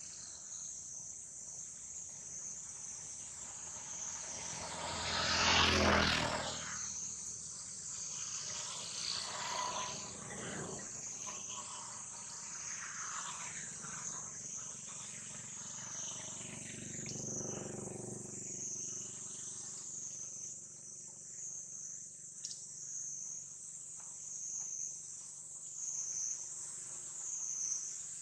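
Insects in a steady, high-pitched chorus that wavers slowly and evenly. A brief loud rush of noise swells and fades about five to six seconds in.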